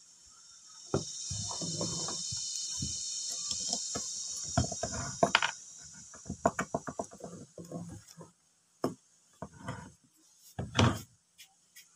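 Knocks and clicks from the parts of a disassembled Makita 9527NB angle grinder, its motor housing and bearing end plate, being handled on a wooden table, with one heavier thump near the end as the housing is set down. A high, steady buzz runs from about a second in until past the middle.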